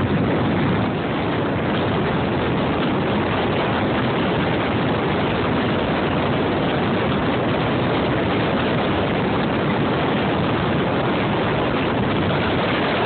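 Steady rushing wind blowing across the microphone.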